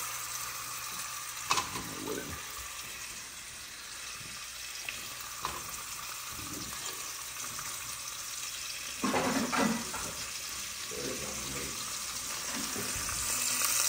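Mangrove snapper fillets frying in hot avocado oil in a pan: a steady sizzle, with a few short knocks or scrapes of handling in the pan, the loudest about nine seconds in.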